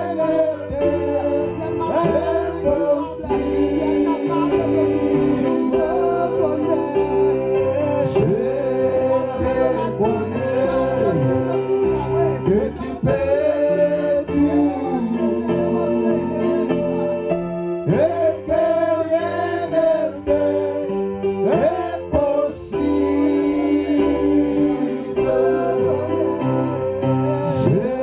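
Live gospel worship music: singers on microphones over an electronic keyboard, with a steady beat.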